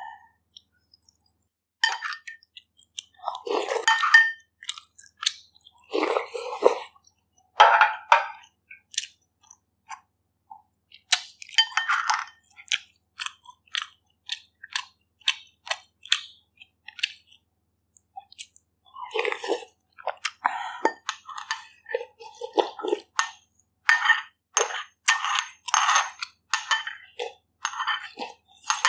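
Close-miked eating of bak kut teh pork ribs: chewing and crunching in scattered short bursts, mixed with light clinks of utensils against the bowl.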